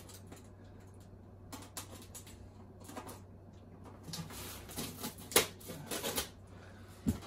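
Statue packaging being handled: scattered small clicks and short rustles, busier from about four seconds in.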